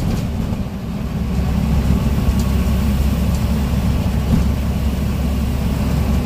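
Scania N94UB bus engine running, heard from inside the passenger saloon as a steady low drone with rumble, dipping slightly about a second in.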